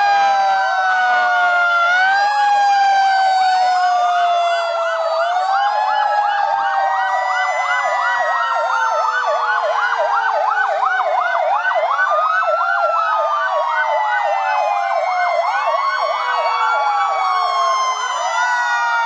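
Many fire engine sirens sounding together as a column of fire trucks drives past. Several slow wails overlap, and a fast yelp runs through the middle.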